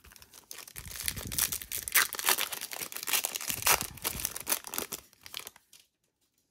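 Foil wrapper of a Topps Chrome baseball card pack being torn open and crinkled by hand: a dense crackling that stops about five and a half seconds in.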